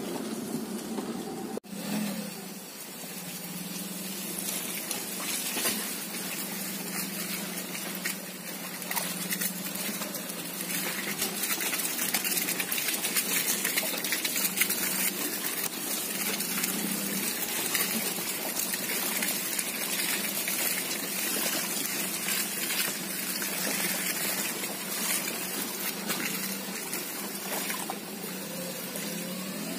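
Maruti Suzuki Alto 800's small three-cylinder petrol engine running steadily at low speed, with the tyres churning and slopping through wet, sloppy mud.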